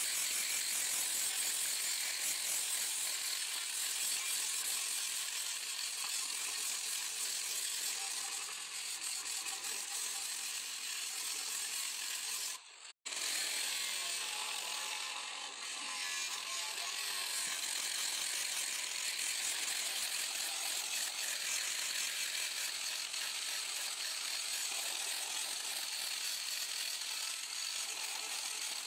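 Hand-held electric angle grinder grinding along the edge of a zebra marble slab, shaping a rounded bullnose edge. It makes a steady, high grinding hiss that breaks off abruptly for a moment about halfway through, then carries on.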